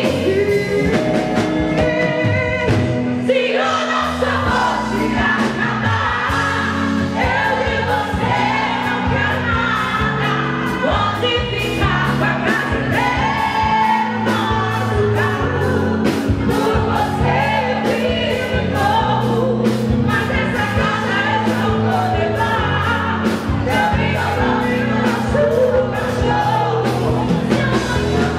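Live band playing a pop song, with female lead vocals over drums and keyboards and a steady beat.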